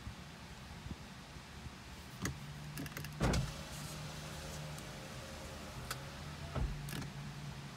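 A car's electric window motor runs for about three seconds, starting and stopping with a clunk, over a steady low hum inside the car.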